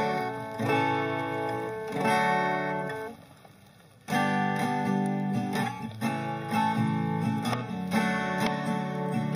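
Acoustic guitar strumming chords as the introduction of a song, with no voice. The playing stops for about a second partway through, then picks up again.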